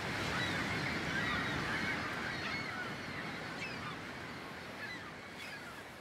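A flock of birds calling over a steady rushing background, many short cries overlapping. The whole sound fades out toward the end.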